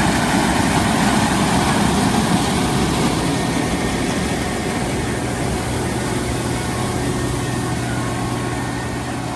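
International 1480 Axial-Flow combine running while harvesting corn: a steady engine and machinery noise with a low hum, slowly getting quieter.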